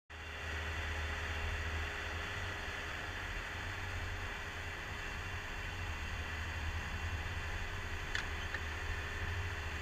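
Compact track loader's diesel engine running steadily under load while its hydraulic drive head turns a helical steel pile into the ground. There is a brief click about eight seconds in.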